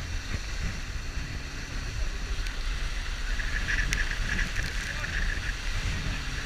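Wind buffeting a low-mounted action-camera microphone and water rushing and spraying past an inflatable banana boat towed at speed, as a steady rumbling hiss.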